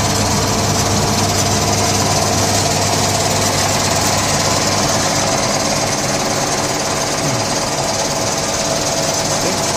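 DMC3 three-stage home CNG compressor running steadily while it fills a tank with compressed natural gas.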